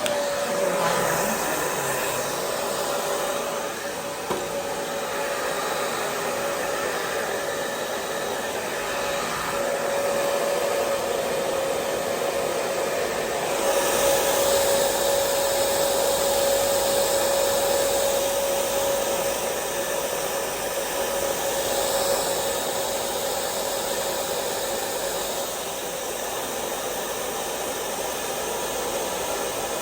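Handheld hair dryer running steadily: an airy rush with a steady motor whine, a little louder and brighter about halfway through. It is drying the Got2b glue spray on a lace frontal wig.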